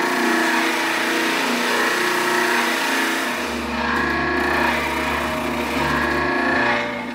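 A table-mounted router running and cutting into a walnut workpiece fed along a starting pin: a loud, steady noise that stops near the end.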